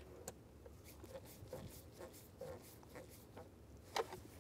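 Faint clicks and light scraping of a screwdriver turning screws into a plastic steering-column shroud, with a sharper click about four seconds in.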